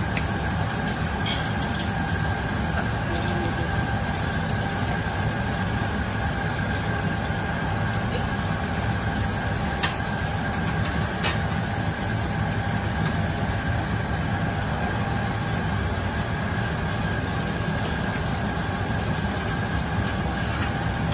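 Dakgalbi simmering in a non-stick wok as a wooden spatula stirs it, over a steady mechanical drone. The spatula knocks sharply against the pan twice, about ten and eleven seconds in.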